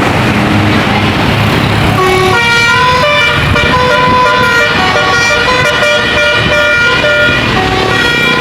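Indonesian tour bus's 'telolet' musical air horn playing a melody, its notes changing in quick steps. About two seconds in it comes in over a loud noisy rush of the passing bus.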